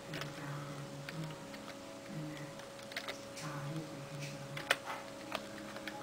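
Computer keyboard being typed slowly, single keystroke clicks spaced irregularly with pauses between them, one key struck harder about three-quarters of the way through.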